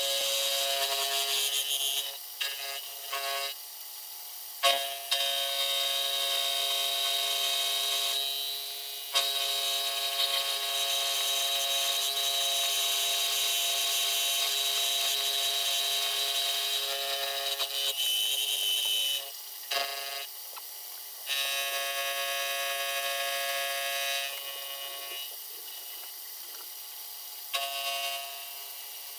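Milling machine end mill cutting a brake caliper's sealing surface flat: a steady, high-pitched metallic whine that drops out briefly several times as the cutter comes off the work.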